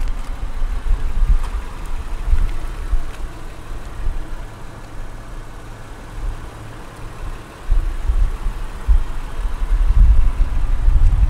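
Wind buffeting the microphone: a low, gusty rumble that swells and fades, heavy at the start and again from about eight seconds in.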